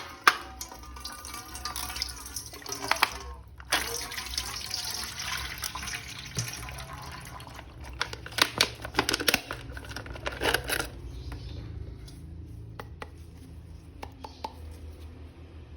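Tap water running and splashing as a plastic action figure is washed, with sharp clicks and knocks of the plastic being handled. The water eases off about 11 seconds in.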